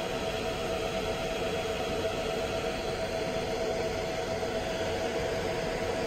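Cooling fans of electronic equipment running with a steady whir and a steady humming tone in it.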